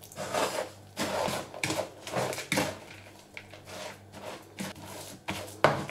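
A spatula stirring and scraping crumbly crushed biscuits mixed with cocoa mass in a bowl, in a series of irregular gritty strokes, about two a second.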